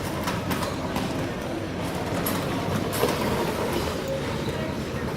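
Airport terminal hall ambience: a steady rolling rumble and din with scattered clicks and knocks.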